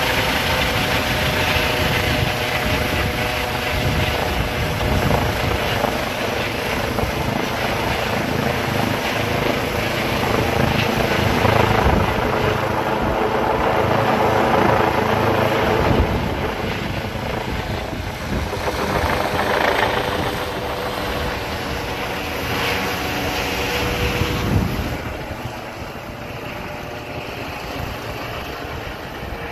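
Air ambulance helicopter flying overhead after takeoff, its rotor beating steadily over a level engine hum. The sound drops away a few seconds before the end as the helicopter moves off.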